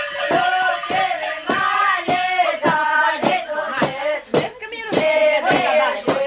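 A group of voices singing a Christmas song together, with a steady beat of sharp knocks about twice a second.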